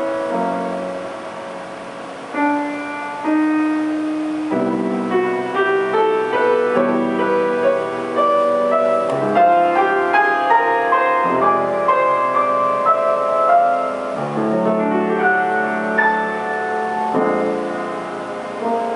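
Grand piano played solo: a classical-style piece with a melody over chords. It starts with a few held notes, then fills out with quicker notes and fuller chords from about five seconds in.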